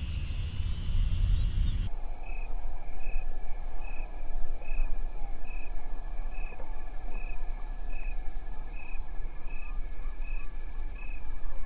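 Marsh ambience: a low rumble, and after an abrupt change about two seconds in, a short high chirp repeating evenly about twice a second.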